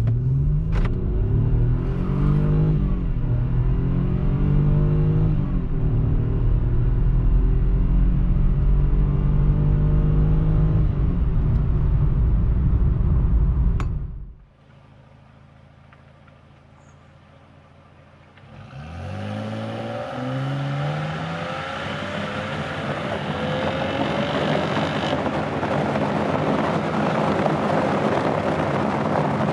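Mercedes-Benz C230 (W203) 2.5-litre naturally aspirated V6 accelerating hard, its pitch rising and shifting, for about fourteen seconds. It cuts off suddenly to a faint hum. A few seconds later the engine note climbs again in another acceleration, with wind and road noise building toward the end.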